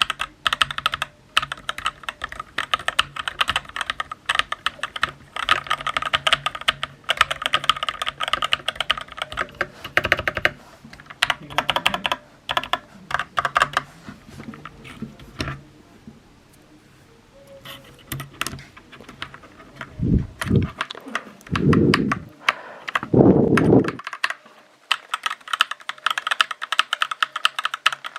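Typing on a Corsair K70 Core mechanical keyboard: fast runs of key clicks, thinning out to scattered keystrokes around the middle. Near the end come three louder, deeper thuds, then the rapid typing resumes.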